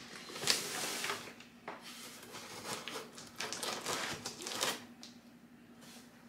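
Cardboard box and packaging being handled during unpacking: scattered rustles, crinkles and small clicks that thin out near the end, over a faint steady hum.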